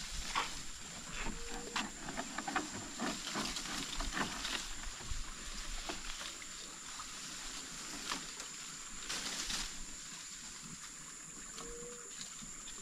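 Scattered knocks and clicks of gear and movement in a canoe on the water, over a steady high-pitched drone of night insects. A short chirp-like animal call sounds twice, about a second in and near the end.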